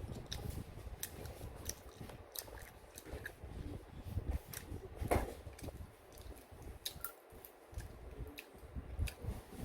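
Close-up chewing of rabokki, rice cakes and ramen noodles in sauce, with soft wet clicks of the mouth scattered throughout.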